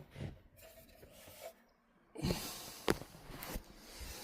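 Hands rubbing and handling parts, with scraping and rustling that picks up about two seconds in and a sharp click about three seconds in.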